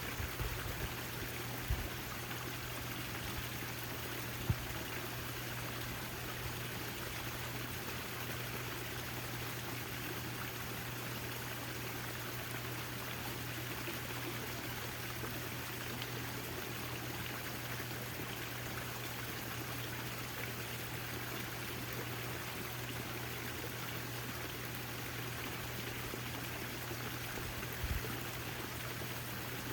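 Backyard water fountain splashing and trickling steadily, over a steady low hum. A few brief low thumps come near the start, about four seconds in, and again near the end.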